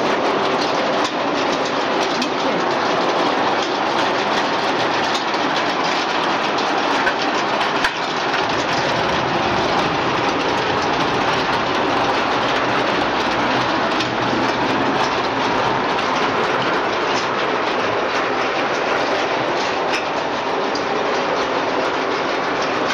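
Stainless steel french fry production line running: a steady mechanical rattle and clatter from its motors and conveyors, with many small clicks.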